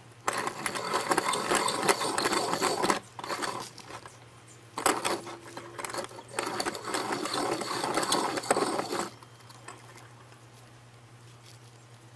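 Hand-cranked piston ring filer grinding the end of a piston ring, in two bursts of rapid rasping cranking, about three and four seconds long with a short pause between. The ring's end gap is being filed wider because it was too tight.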